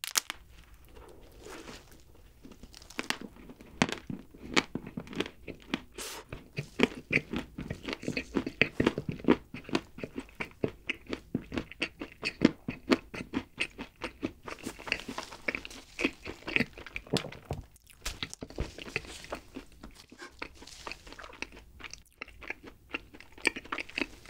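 Close-miked chewing of a chocolate-coated choco pie: a bite at the start, then a dense run of small wet mouth clicks and smacks as it is chewed.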